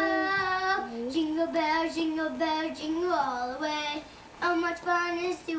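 Young children singing a tune, holding each note for about half a second, with a short break about four seconds in.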